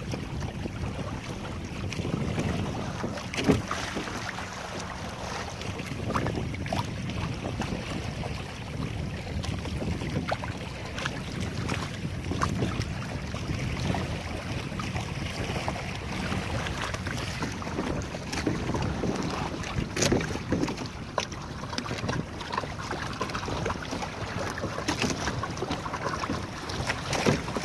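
Wind buffeting the microphone and choppy water splashing against the hull of a Hobie sailing kayak under way, with a few sharp slaps or knocks, the loudest about twenty seconds in.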